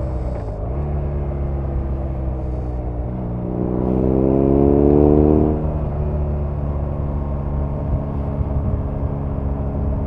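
BMW R nineT's 1170 cc boxer twin under way. The revs drop sharply within the first second with a gear change, then climb for about two and a half seconds under acceleration, loudest about five seconds in. They fall back near the six-second mark and the engine settles into steady cruising.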